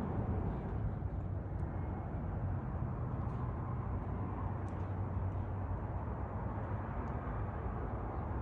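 Yamaha WR450F's single-cylinder four-stroke engine running steadily at an even speed, a low, constant engine sound.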